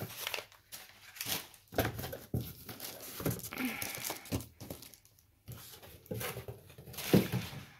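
Plastic mailer bag crinkling and a cardboard box rustling as a wrapped parcel is lifted out and handled, irregular rustles with a few sharper knocks.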